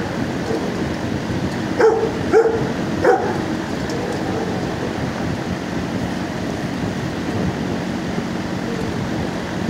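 Three short dog barks in quick succession, about a second and a half apart in all, over a steady background noise in a shelter kennel.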